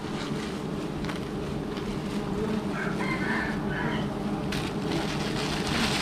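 A rooster crowing once, about three seconds in, a call of about a second, over a steady low hum. From about four and a half seconds a plastic bag crinkles and rustles.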